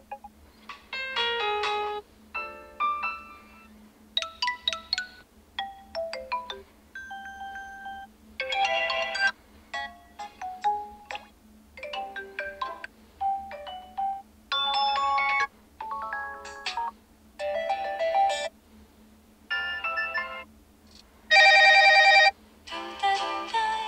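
Built-in ringtones of a ZTE Blade A73 phone, played one after another as short melodic snippets of about a second each. Each snippet is cut off abruptly as the next tone starts; the loudest comes near the end.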